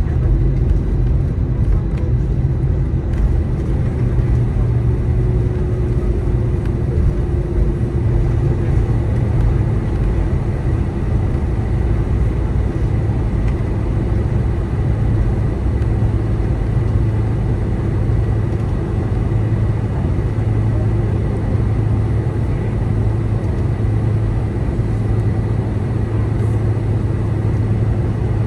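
Steady cabin noise inside a Boeing 747-400 airliner: the deep, even rumble of its four jet engines and the airflow, with a low hum and a thin steady whine over it.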